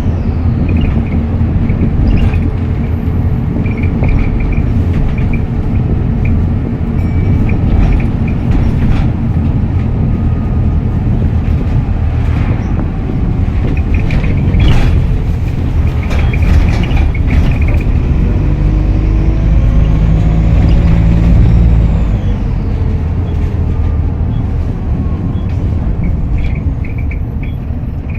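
Optare Solo SR bus diesel engine running under way with a heavy low rumble, its turbocharger whistle rising and falling as the bus pulls, with wind noise on the microphone.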